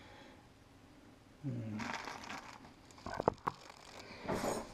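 Small parts and heat-shrink tubing being handled by hand: rustling and crinkling with a few sharp clicks about three seconds in. A brief hum from a man's voice comes about a second and a half in.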